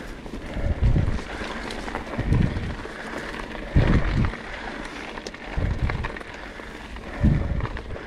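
Mountain bike rolling along a dirt trail: tyre noise and drivetrain rattle under wind on the microphone, with a low thump about every one and a half seconds.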